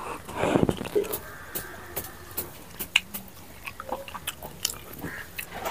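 A person chewing a mouthful of mustard fish curry, with many small wet clicks and smacks of the mouth and a louder smack about half a second in.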